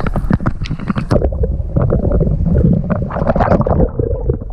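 Lake water sloshing and gurgling around a GoPro as it dips under the surface, with scattered knocks and clicks. The sound turns muffled about a second in, once the camera is underwater, as a released channel catfish swims off.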